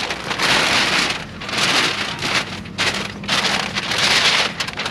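Tyvek ground sheet rustling and crinkling as it is spread out and smoothed by hand, in several surges about a second long each.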